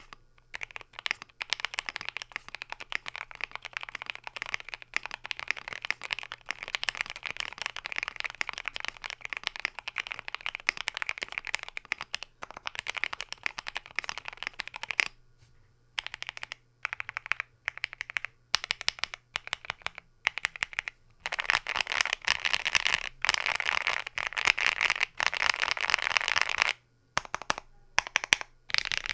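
Typing on a KBDFans Tofu60 mechanical keyboard built plateless, with lubed Banana Split linear switches. Fast runs of keystrokes, with slower, separate key presses around the middle and near the end.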